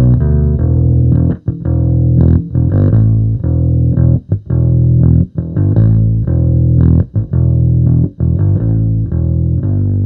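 Electric bass played with a pick through a Sonicake B Factory bass preamp: a riff of punchy low notes, broken by a few short stops between phrases.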